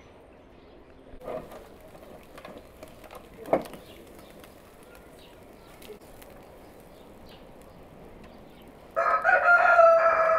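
A rooster crowing once near the end, a loud, long call that drops in pitch as it ends. Earlier there are a few faint clicks and one sharp knock.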